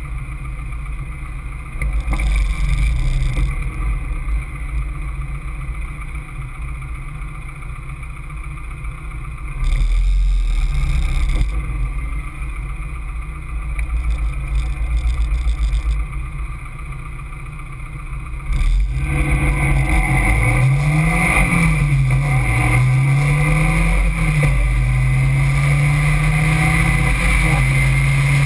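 Caterham Seven engine heard from the open cockpit with wind rushing past, running steadily at part throttle. About two-thirds of the way in it goes suddenly louder as the car accelerates hard, the revs climbing and dropping back a few times as it shifts up, then holding high.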